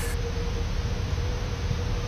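Steady hiss of background noise with a faint steady hum.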